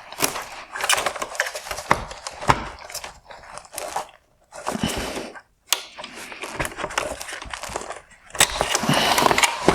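Hard plastic parts of an LED headlight being handled as a wire harness connector is released and the projector is pulled free: irregular rustling and scraping with many sharp plastic clicks and a few short pauses.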